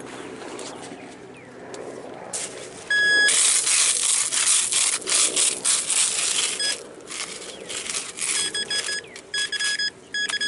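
Digging tool scraping and chopping into park soil for about three seconds, then a metal detector sounding short, steady beeps, repeated several times near the end as it closes in on the buried metal target.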